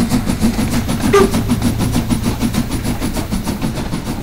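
Metre-gauge steam locomotive working hard, its exhaust beating in a quick, even rhythm over rail noise. A short voiced whoop about a second in.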